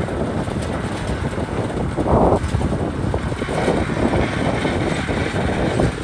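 Komatsu D61PX crawler bulldozer's diesel engine running as the machine works, a dense uneven rumble with a louder swell about two seconds in.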